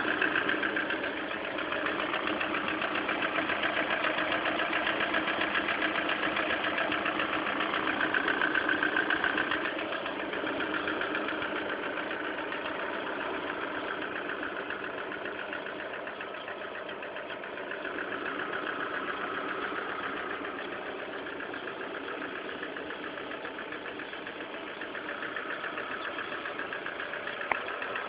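Lada Kalina 1.4 16V four-cylinder engine running with a rapid, clattering tick over the engine noise. The owner cannot identify the noise and calls it a common complaint on many of these cars. One short sharp click near the end.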